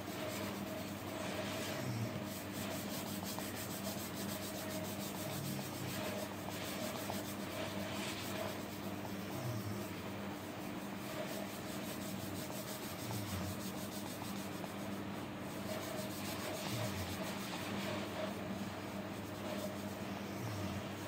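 Yellow coloured pencil shading on paper: quick back-and-forth rubbing strokes, heard over a steady low electrical hum.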